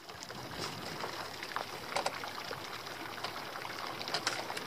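Seawater trickling and dripping from a freshly hauled lobster pot, with a few faint clicks and knocks as the pot is handled.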